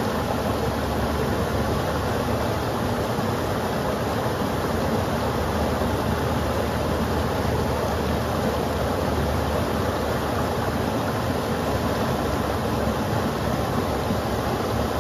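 Rain-swollen creek rushing over rock ledges in white-water riffles: a steady, unbroken rush of water.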